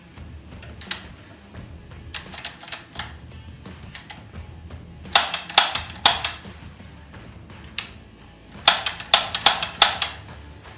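Shots from a 4.5 mm CO2 air rifle styled as an AR15: sharp cracks, a few single ones and two quick bursts, the second of about eight shots. Background music plays throughout.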